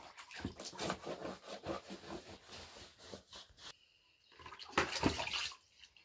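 Water splashing as a hand dips into a plastic bucket of water, then wet bread dough being squeezed and kneaded by hand in a metal pan, with a louder burst about five seconds in.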